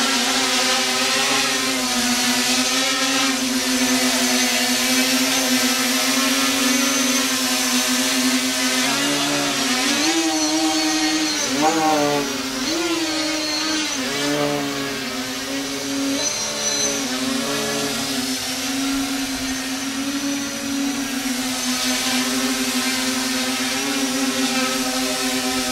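Four Parkzone 480 960kv brushless motors spinning the propellers of a homemade wooden H-frame quadcopter, a steady buzzing whine as it lifts off and hovers. Around the middle, the pitch rises and falls several times as the throttle is worked.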